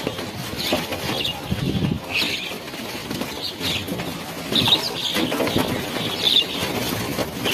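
A flock of birds: short calls repeating about once or twice a second over a steady fluttering rustle of wings.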